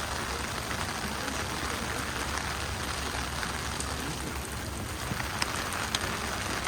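Pouring rain falling steadily, with a few sharp ticks in the last couple of seconds.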